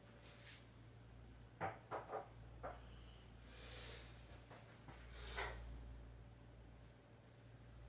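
Faint handling noises over quiet room tone: a quick run of light clicks and knocks, then a couple of soft rustles.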